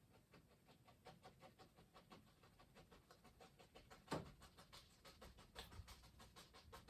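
Fan brush dabbing oil paint onto a canvas: a quick, faint run of soft taps, several a second, with one louder knock about four seconds in.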